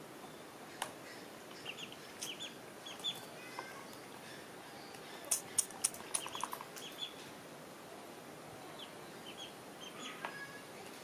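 Ducklings peeping: scattered short, high cheeps throughout, with a quick run of sharp taps a little past the middle.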